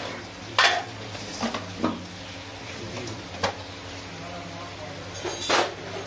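Stainless steel plates and bowls clinking and clattering as they are handled, a handful of sharp clanks at uneven intervals over a steady low hum.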